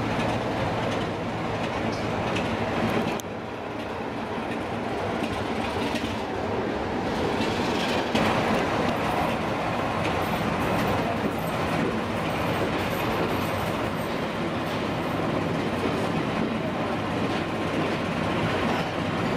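A diesel-hauled heritage train running, with a steady diesel engine note under the rumble of coaches rolling on the rails.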